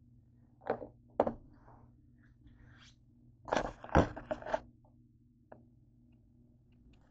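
Handling noise on a kitchen counter: two sharp knocks, then a louder stretch of clattering and rubbing about three and a half seconds in, then a single small click.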